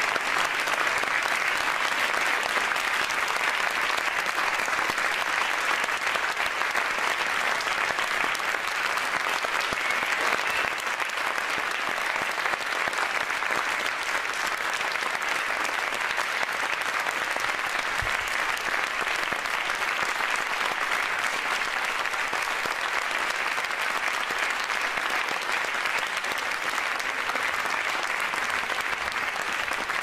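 Applause: many hands clapping densely and steadily, merging into an even wash with no single claps standing out.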